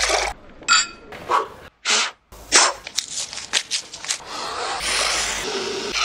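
A quick succession of short comic sound effects from a Soviet film soundtrack, cut one after another. Noisy bursts and clicks come in with a brief silent gap about two seconds in, and a steadier hiss takes over near the end.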